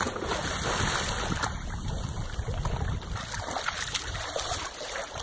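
A corgi splashing as it swims in lake water, then wading out through the shallows at the shore; the splashing is loudest at the start and eases off.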